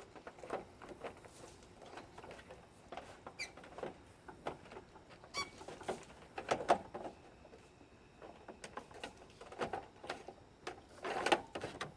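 Irregular light clicks, taps and scrapes of parts being handled and fitted together by hand, with a slightly louder cluster of knocks about six and a half seconds in.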